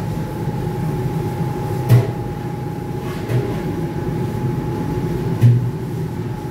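Steady mechanical hum with a constant high whine over it, broken by three short knocks about two, three and a half, and five and a half seconds in.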